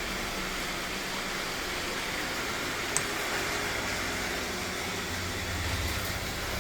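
Roborock S7 robot vacuum running, the steady whir of its suction fan and brushes, with a single short click about three seconds in.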